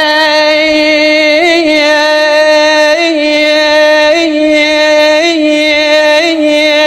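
Middle Eastern-style music: one long held note on a steady pitch, with a brief upward ornament about once a second.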